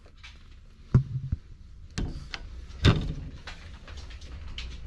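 A few sharp knocks and thumps of handling, spaced irregularly, the loudest about a second in and about three seconds in, over a low steady rumble.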